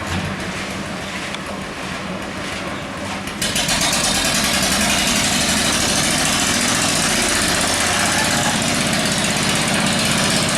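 Small engine-driven machine running steadily. About three and a half seconds in it gets louder and harsher, with a fast rattle.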